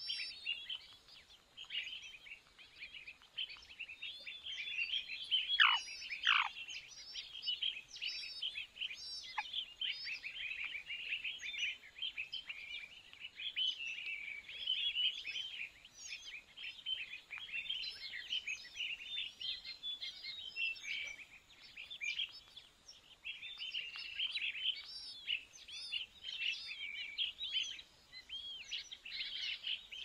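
Nestling birds in the nest begging with dense, rapid high-pitched chirps throughout. Two quick downward-sliding whistles come about six seconds in.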